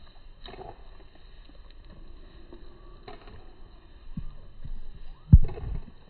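Handling noise from a smartphone with a clip-on telephoto lens: a few low thumps and rumbles near the end, the loudest a short knock, over a faint steady outdoor background.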